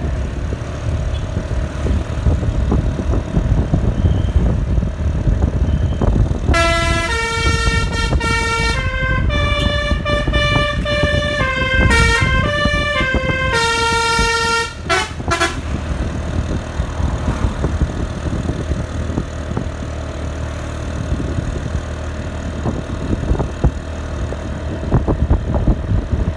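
Bus telolet horn played by hand through a pianika-style keyboard actuator. About six seconds in it plays a melody of held notes for roughly nine seconds, then gives a few short toots. A bus engine rumbles underneath.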